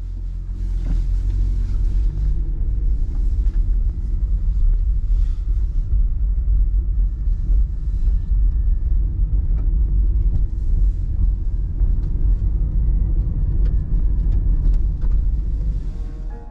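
Waterfall heard close: a loud, steady rumbling roar of falling water, heaviest in the deep low end, with a fainter hiss above.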